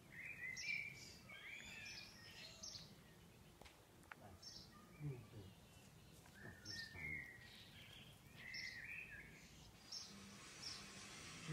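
Faint songbird song: short phrases of quick, high chirps and warbles, repeated every couple of seconds with pauses between.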